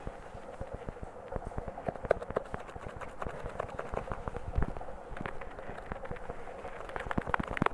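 A rapid, irregular patter of small clicks and taps, with a few louder knocks about two seconds in, near the middle and near the end.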